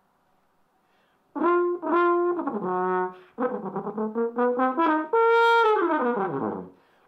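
French horn played solo. After a rest of about a second, it plays a run of short separate notes, then a long high held note that slides down in pitch and fades near the end.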